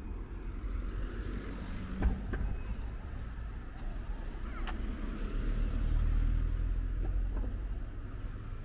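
Street traffic: a car passing close by, its engine and tyre rumble swelling to a peak about six seconds in and then easing off. A sharp knock sounds about two seconds in, and a few short high chirps come near the middle.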